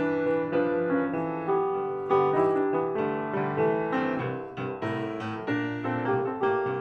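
Piano music: a melody of struck notes over held chords.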